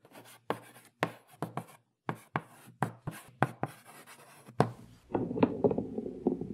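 Handwriting sound effect: a pen scratching quick strokes on paper, about a dozen short scrapes. About five seconds in, a denser, lower sound with steady pitched tones takes over.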